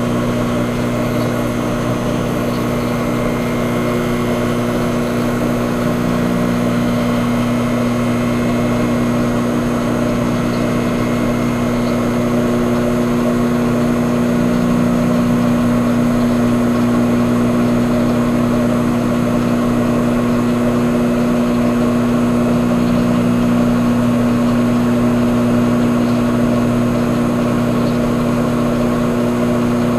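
A motor running steadily: a continuous low droning hum at one pitch, with a faint swell about every eight seconds.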